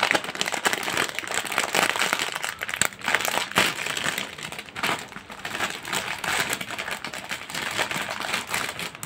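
Foil snack bag crinkling as it is handled and pulled open at its top seal: a dense run of crackles that starts suddenly.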